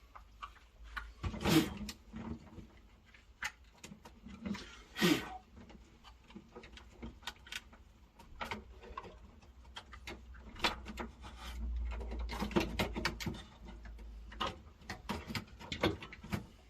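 Scattered clicks and knocks of objects being handled, with two louder knocks in the first five seconds and a quicker run of clicks near the end.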